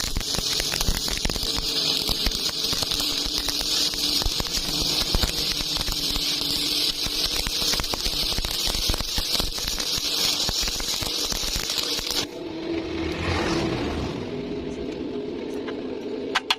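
Stick (SMAW) welding arc crackling and sizzling with dense small pops. The arc breaks off abruptly about 12 seconds in, leaving a lower steady hum.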